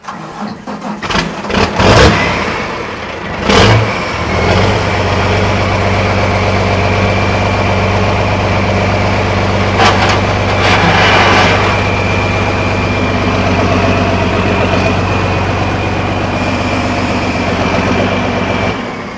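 1800-horsepower pulling tractor's diesel engine cranking over and firing up, with a sharp bang about a second and a half after it catches. It then settles into a steady loud idle with a thin high whine over it, run to warm the oil before an oil change.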